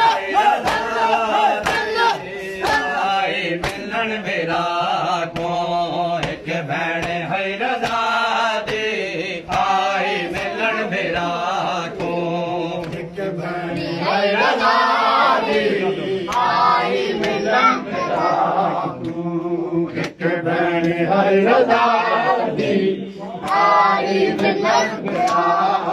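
A group of men chanting a Punjabi noha (mourning lament) together. Rhythmic sharp slaps of chest-beating matam keep time under the chant.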